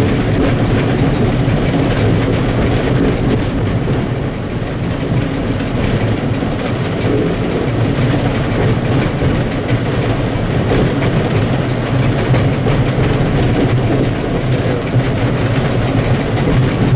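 M62 diesel locomotive's engine running steadily in the cab, a low drone, under a loaded freight train, with the wheels clicking and rattling over the rails and turnouts.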